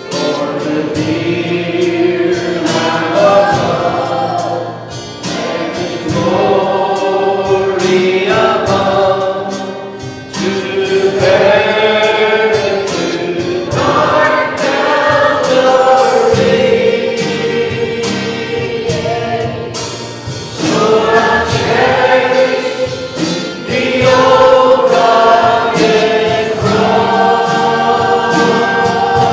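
Congregation or choir singing a gospel hymn with instrumental accompaniment, in phrases a few seconds long.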